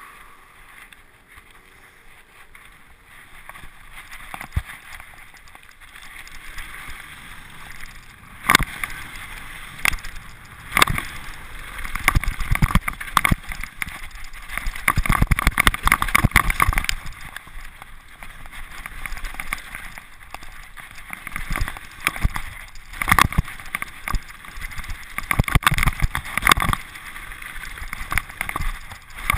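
Mountain bike rolling down a rocky, gravelly trail: tyre noise on loose stone and wind rush, with the bike rattling and knocking over rocks. Quieter at first, then from about eight seconds in the clatter and knocks come thick and loud in bursts as it picks up speed.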